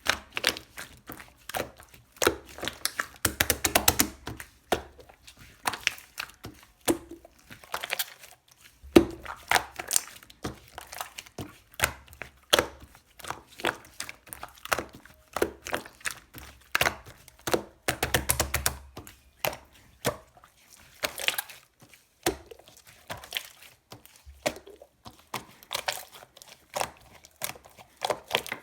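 Green shaving-foam slime being pressed and squished by hand, giving an irregular run of sharp clicks and crackling pops.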